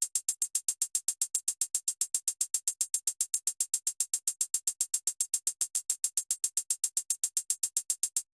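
Electronic percussion sample from an amapiano sample pack. An even, machine-regular run of bright, short ticks plays at about seven or eight a second, each hit alike, and cuts off suddenly near the end.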